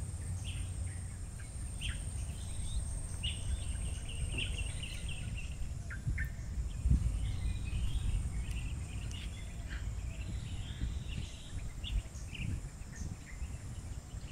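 Birds chirping and calling in mangrove forest, many short calls throughout, over a steady high-pitched insect drone and a low rumble.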